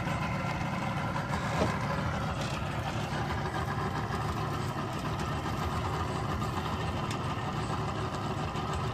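Boat's outboard motors idling, a steady low hum.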